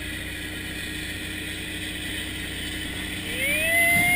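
A boat engine runs steadily under the rush of water along the hull. About three seconds in, a second, higher engine note rises in pitch and then holds as a large speedboat passes close at high speed.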